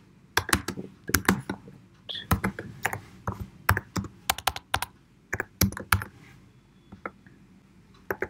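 Typing on a computer keyboard: irregular key clicks in quick runs, with a pause of about a second roughly two-thirds of the way through.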